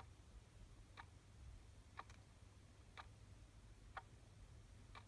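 Mechanical alarm clock ticking faintly, one tick a second, over a low steady room hum.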